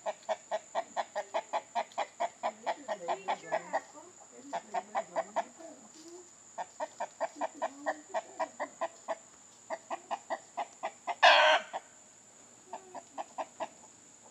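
Chickens clucking in long runs of rapid, even clucks, about seven a second, with short pauses between runs. A brief loud squawk-like burst comes about eleven seconds in.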